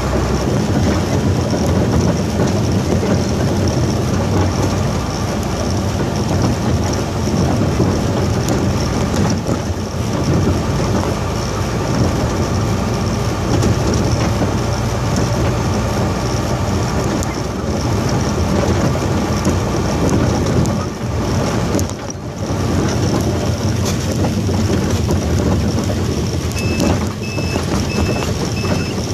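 Dump truck's engine running under way with road noise, heard from inside the cab. Near the end a regular electronic beep starts, repeating about one and a half times a second.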